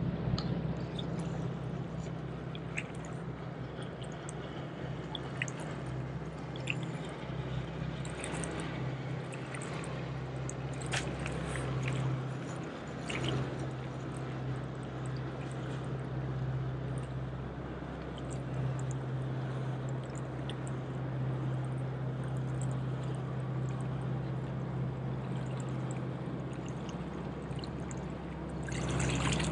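Seawater sloshing and lapping against the rocks of a jetty, over a steady low hum, with scattered light ticks.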